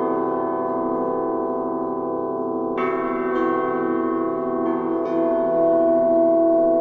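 Bronze bells ringing, several long tones sounding together and pulsing slowly as they fade. A strong new strike comes about three seconds in, and a few lighter strikes follow, each ringing on over the earlier ones.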